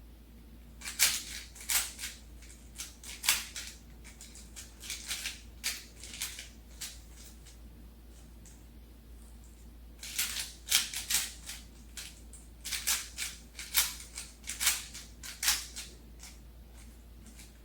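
Plastic Rubik's Cube being turned quickly by hand during a solve: bursts of clicking, rattling layer turns, with a lull of two or three seconds midway.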